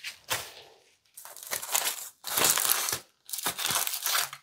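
Aluminium foil crinkling and crackling in gloved hands as a hair-highlight foil packet is opened and folded shut again to add more bleach, in about four rustling stretches.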